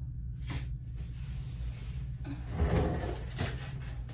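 Folding massage table being handled as its padded top is unfolded and lifted: a sharp knock about half a second in, then a cluster of clunks and knocks from the table's wooden frame over the second half.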